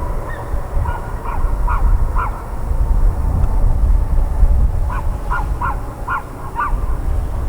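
A crow cawing in two quick runs of short calls, four about a second in and five more near the end, over a steady low rumble.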